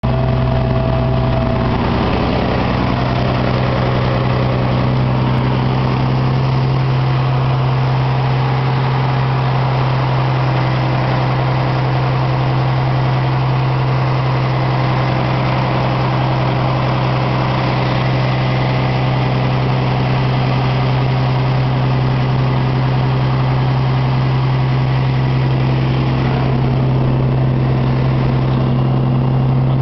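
Vehicle engine running steadily with an unchanging low hum, heard from inside the cab.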